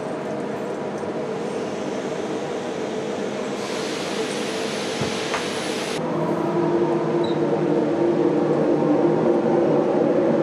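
Steady drone of foundry machinery with a rumble and several held hums. About six seconds in the sound changes and grows louder as a melting furnace's door lifts to open on molten metal.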